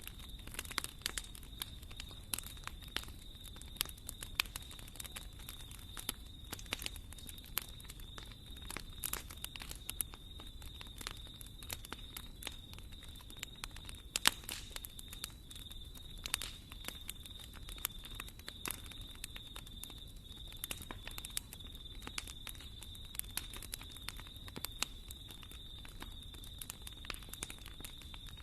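Wood fire burning in a fireplace, crackling with frequent irregular sharp pops over a low steady rumble.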